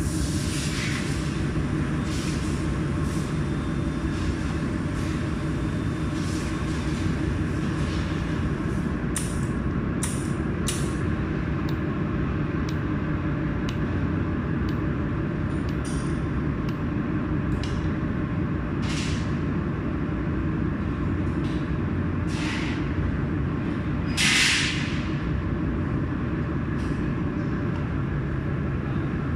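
Mold-repair laser welding machine running with a steady low hum, while the laser fires in short sharp snaps at irregular intervals, with one longer hiss near the end.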